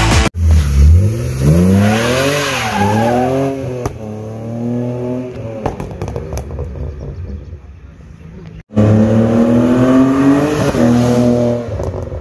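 BMW E30 with a swapped-in 3-litre straight-six from a BMW X5 accelerating hard: the engine note climbs in pitch, drops at a gear change about three seconds in, climbs again and then fades. After a sudden cut a little before the nine-second mark, the engine is loud again, rising and then dropping as it pulls away and fades.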